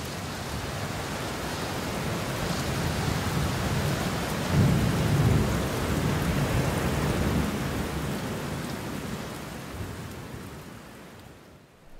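Steady rain falling, with a low roll of thunder swelling about four and a half seconds in; the rain fades away near the end.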